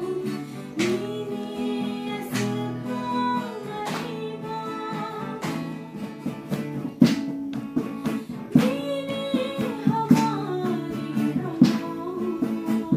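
A woman singing a song to a strummed acoustic guitar accompaniment. The guitar strokes come through more sharply in the second half.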